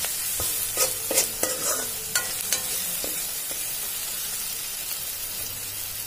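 Chopped tomatoes and onions frying in oil in a metal kadai, sizzling steadily, while a metal spatula stirs and scrapes the pan with several sharp clinks in the first three seconds.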